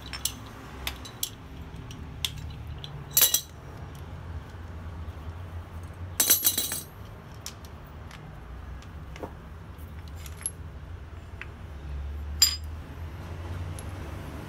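Steel parts of a rotary hot shear clicking and clinking as it is taken apart: a wrench on the pivot bolt, then the bolt and nut worked loose by hand. Light ticks throughout, with louder metal clinks about three seconds in, a short rattle about six seconds in and another clink near the end.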